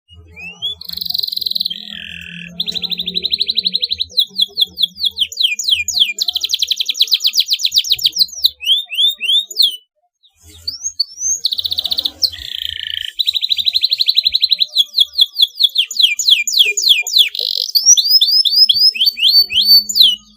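Domestic canary singing a long song of rapid rolling trills and quick repeated sweeping notes, with a short pause about ten seconds in before a second phrase begins.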